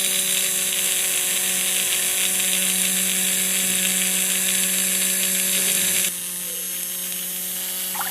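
Small electric motor running with a steady whirring hum; it drops in level and loses some of its high hiss about six seconds in.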